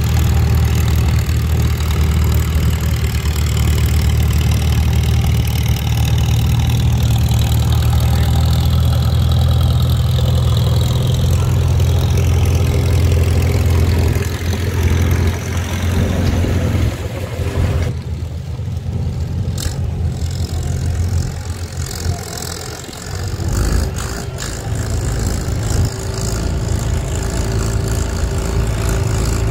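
Antique farm tractor engine running steadily, then changing and easing off about halfway through before running on at a lower level.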